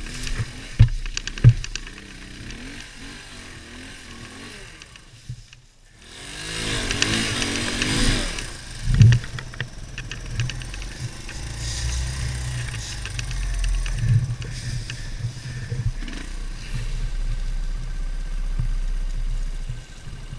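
Beta Alp 200 dirtbike's single-cylinder four-stroke engine running and revving on a trail, with a few sharp knocks early on. About five seconds in the sound drops away briefly, then the engine revs back up, rising in pitch, and carries on running.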